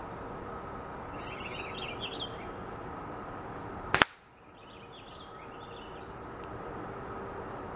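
.177 pellet air rifle shot: one sharp crack about four seconds in, with the pellet striking the orange target, amid steady outdoor background and small bird chirps.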